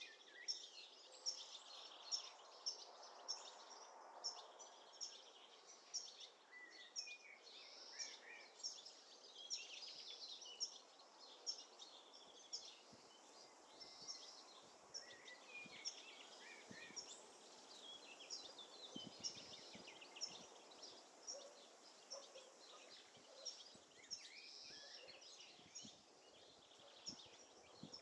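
Faint songbirds chirping in the trees, a steady stream of short, high calls about every half second over a soft background hiss.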